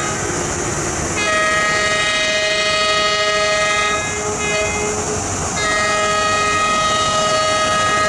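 Diesel locomotive's air horn sounding long, steady blasts as the train approaches, with short breaks about a second in and again around four seconds in.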